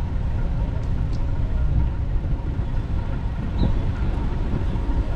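Steady low rumble from a bicycle-mounted GoPro on the move: wind buffeting the camera microphone, with city street traffic underneath. A couple of faint ticks about a second in.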